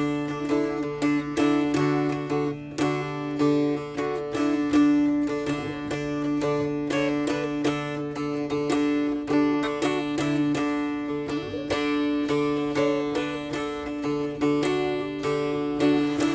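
Mountain dulcimer playing a tune in quick strums, the melody moving over steady drone notes that ring throughout.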